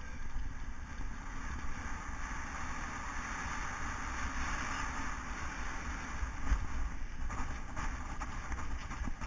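Wind buffeting the microphone of a camera riding on a cyclocross bike, over the hiss of tyres rolling on pavement; the hiss swells about halfway, and there are a few light knocks later on.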